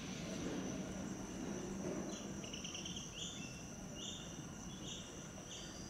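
Crickets chirping: a steady high trill throughout, joined from about two seconds in by short pulsed chirps repeating a little faster than once a second. A low rumble fades away over the first two seconds.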